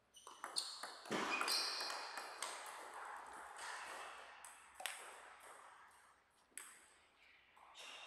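Table tennis ball clicking off bats and table in a quick rally of a few hits in the first second, followed by a louder rush of noise lasting a second or two. Later come two single clicks of the ball, well apart.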